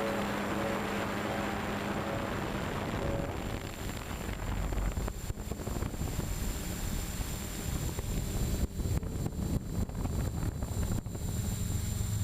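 Storm 6 hexcopter's six electric motors and propellers running in flight, recorded by its onboard GoPro, with a thin steady high whine over the rotor noise and wind buffeting the microphone. Background music fades out in the first few seconds.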